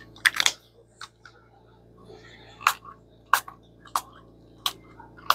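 Small pump-spray bottle of alcohol-ink stain spritzed onto paper in short hissing sprays: two quick ones at the start, then after a pause five more about two-thirds of a second apart.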